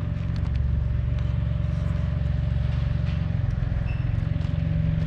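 A machine running steadily: a low, even drone with a thin constant hum above it and a few faint clicks.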